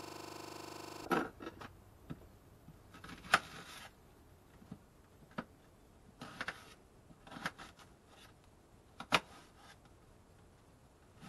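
Kitchen knife cutting an onion on a plastic cutting board: scattered sharp taps and clicks of the blade striking the board, irregular and roughly a second apart, the loudest about three seconds in and about nine seconds in. A steady electronic-sounding hum with several tones cuts off abruptly about a second in.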